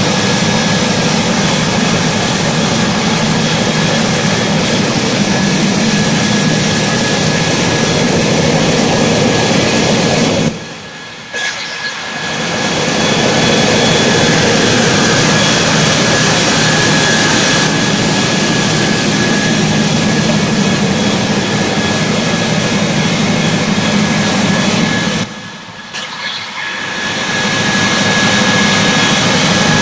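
Toothpaste-tube making machine running at speed, a loud steady mechanical din with a low hum and a thin high whine. The noise drops away sharply twice, about a third of the way in and again near the end, and builds back up over a second or two each time.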